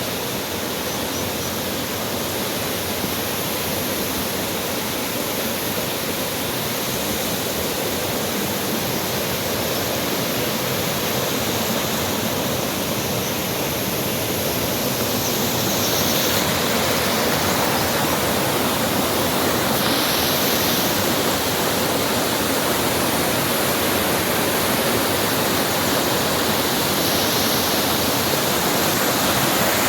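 Rushing water of a forest stream or small waterfall, a steady roar that grows a little louder about halfway through.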